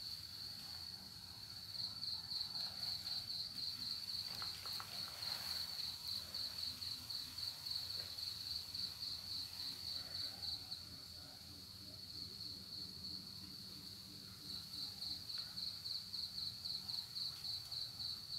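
A cricket chirping: a high, steady pulsing at several pulses a second, easing for a few seconds a little past the middle and then coming back.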